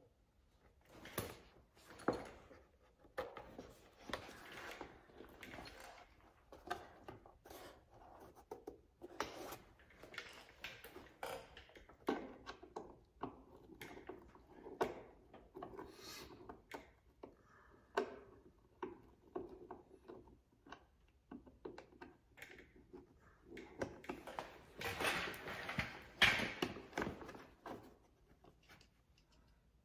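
Irregular rubbing, scuffing and small clicks of hands working a fabric storage bag into place against a plastic side-by-side door panel, with a louder stretch of scraping near the end.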